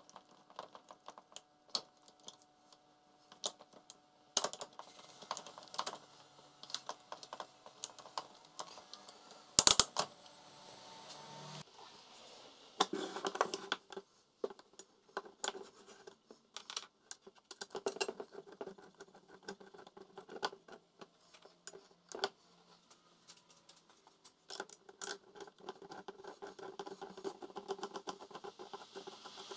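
Irregular clicking and tapping of small hard parts being handled, with stretches of scraping and one loud knock about ten seconds in.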